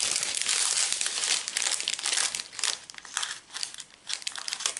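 Foil packets of diamond painting drills crinkling as they are handled and cut apart with scissors: a dense run of crinkling for the first couple of seconds, then shorter, broken rustles.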